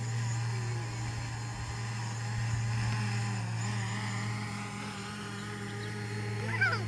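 Small quadcopter drone's propellers and motors humming steadily in flight. A brief chirp cuts in near the end.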